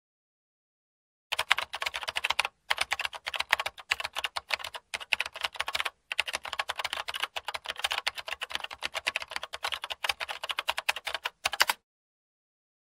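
Rapid, uneven keyboard-typing clicks, with a few short breaks. They start about a second in and stop suddenly near the end.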